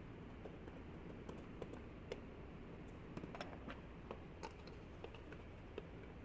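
Light, irregular taps and clicks of a hand tool and gloved hands against a thin brass bowl as it is handled and worked from the inside, over a steady low background hum.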